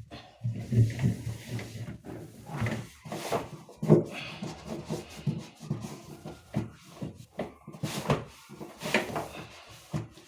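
Hand wiping and scrubbing the inside of a refrigerator with a cloth, with irregular rubbing strokes and occasional knocks.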